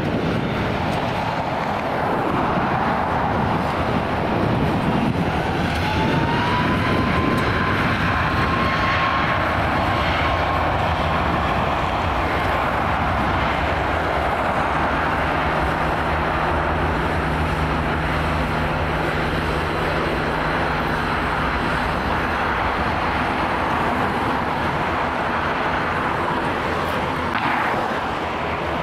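Jet engines of a Ryanair Boeing 737 MAX 8 (CFM LEAP-1B turbofans) running on the runway, a steady roar. About six seconds in, a fan whine rises and then holds steady for several seconds.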